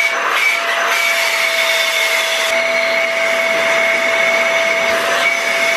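Dyson vacuum running with the Lint Lizard's long flexible hose attached, drawing air through the tube as it is fed into a dryer's lint-trap opening. It is a steady rush of air with a steady motor whine.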